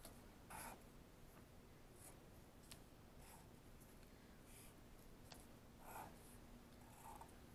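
Faint squeaks and scratches of a black felt-tip marker drawing short straight line strokes on construction paper, one stroke every second or so, with a couple of light clicks.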